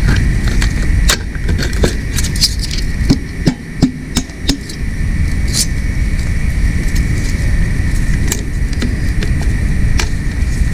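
Scattered light metallic clinks and knocks of hand tools and engine parts being handled, over a steady low rumble and a constant high hum.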